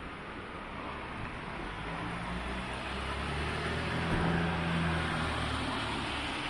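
Street traffic noise with a motor vehicle passing: a low engine hum swells from about two seconds in, is loudest a little past four seconds, and fades before the end.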